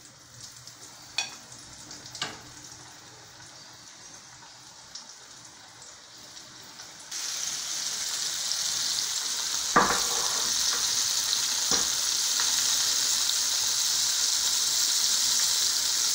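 Cornmeal-coated sardines frying in hot oil in a pan: a steady hiss and sizzle. The sizzle is faint at first, then jumps much louder about seven seconds in, and a few sharp clicks are heard along the way.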